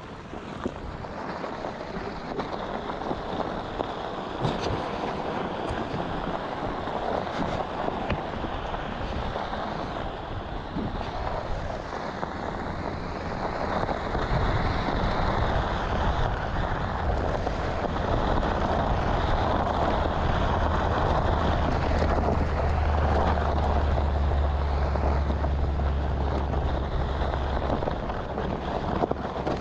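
Onewheel's single tyre rolling over a desert gravel trail: a continuous crunching, rumbling noise. About halfway through, a low wind rumble on the microphone grows stronger.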